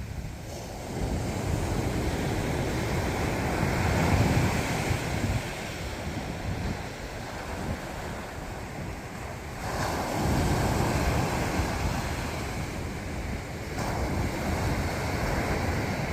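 Sea waves breaking on the shore, swelling into three louder surges a few seconds apart, with wind buffeting the microphone.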